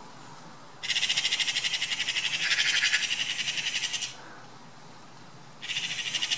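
Magpies chattering, a harsh, rapid rattling call, in alarm as they mob a hawk on its kill. One rattle starts about a second in and lasts some three seconds; another starts near the end.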